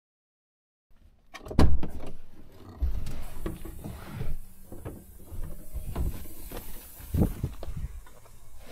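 Driver climbing out of a Volvo FH truck cab: a loud clunk about a second and a half in as the cab door opens, then irregular knocks and thumps of boots on the cab steps and down onto the asphalt.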